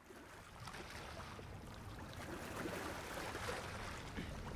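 Small waves lapping and splashing on open water over a low rumble, fading in over the first second.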